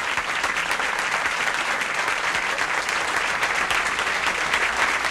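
Audience applauding: steady, dense clapping from a crowd at the close of a live song.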